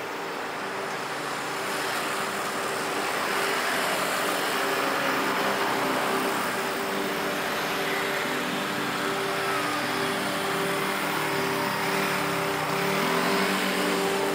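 City street traffic heard while riding along: car and scooter engines running over a steady rush of road noise, with a low engine hum that shifts in pitch near the end.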